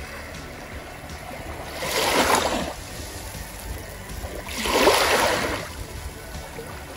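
Small waves washing up on a sandy beach, two gentle surges about two and five seconds in, with a low wash between them.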